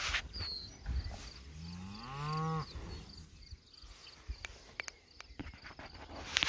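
A cow moos once, about a second and a half in. It is a single call of about a second that rises in pitch and then levels off.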